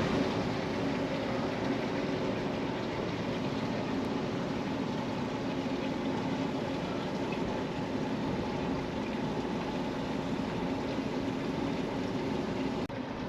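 Steady low engine hum of the cargo ship Polsteam Narie, with a constant rush of churning water as she eases into the lock.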